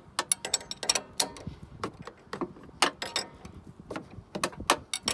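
Ratchet wrench clicking in short, irregular runs as the nut on top of a Bilstein 6112 coilover's shock shaft is tightened, drawing the damper up against its spacer.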